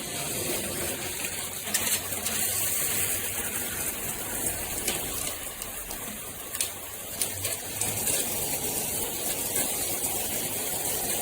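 Delta In2ition 2-in-1 shower head running, water spraying out in a steady rush with a few faint clicks.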